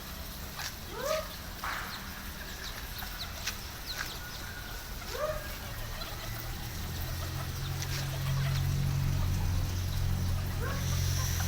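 Bantam chickens (ayam kate) giving a few short rising clucks, with scattered light clicks. A low steady hum comes in about seven seconds in.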